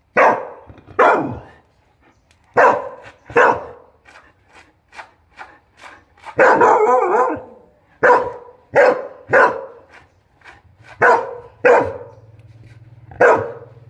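A dog barking in short sharp pairs, about eleven barks in all with one longer, drawn-out bark about six and a half seconds in, barking at a lizard it is trying to catch. A faint low steady hum comes in near the end.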